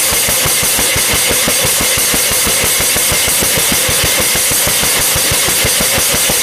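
A loud, rapid mechanical rattle of about eight beats a second with a strong hiss over it, like a small engine or motor running hard; it cuts off suddenly at the end.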